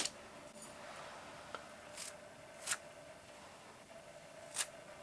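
Paint spattered from a wet toothbrush: a finger flicks across the bristles in three short, faint, scratchy strokes spaced unevenly over a few seconds.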